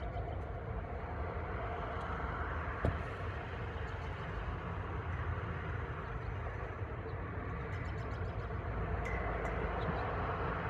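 Steady outdoor background rumble and hiss between siren voice announcements, with a single brief knock about three seconds in.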